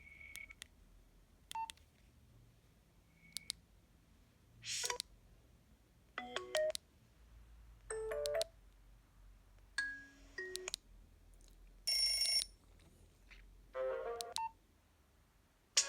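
Nokia 112 mobile phone's loudspeaker playing short snatches of different ringtones one after another, about every one and a half to two seconds, after a few short keypad beeps.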